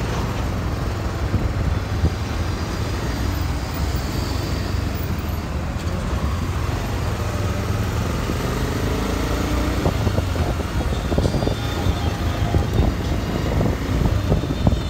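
Motorcycle riding through city traffic: steady wind rumble on the microphone over the bike's running engine and passing vehicles, the rumble turning gustier about two-thirds of the way in.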